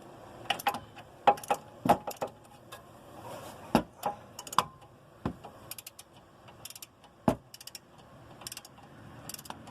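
Torque wrench ratcheting as brake caliper mounting bolts are tightened: short runs of quick ratchet clicks and a number of sharper single clicks and knocks, irregularly spaced.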